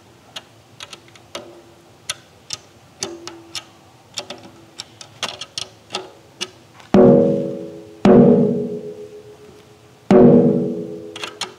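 Ludwig Black Beauty snare drum being tuned down: a run of light taps on the head, about one or two a second, then three loud stick strikes, each left ringing with a pitched tone that dies away over about a second.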